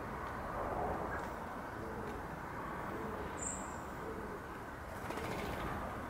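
A pigeon cooing faintly in a series of soft, low phrases over a steady low background rumble, with one brief high tone about three and a half seconds in.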